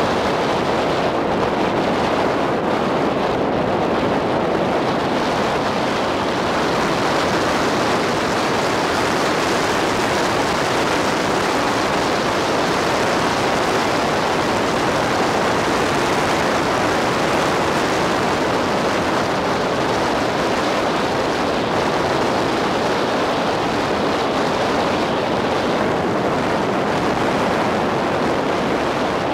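Steady rushing road and wind noise of a car driving along at an even speed.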